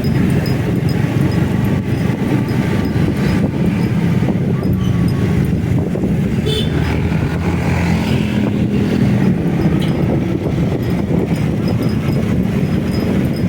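Motorcycle under way: engine and road noise as a steady low rumble.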